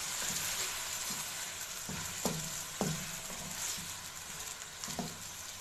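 Marinated chicken pieces sizzling in hot oil in a kadhai while being stirred with a wooden spatula. A steady frying hiss, with a few knocks of the spatula against the pan.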